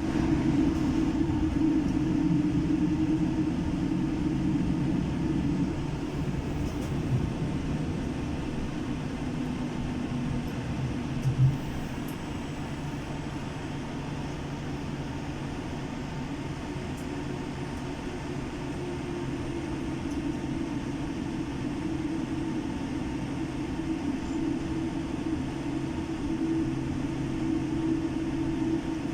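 Boeing 787 Dreamliner's jet engines and airframe giving a steady low drone, with a single thump about eleven seconds in.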